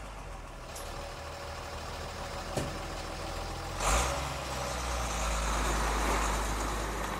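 Iveco Stralis truck's diesel engine running with a steady low rumble, getting louder from about five seconds in. A sharp click comes about two and a half seconds in, and a short burst of noise about a second later.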